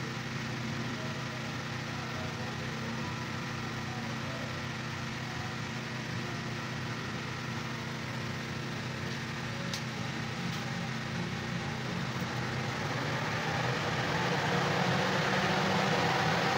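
Steady hum and whir of a 14-inch industrial extractor fan's motor and blades, growing louder about three-quarters of the way through.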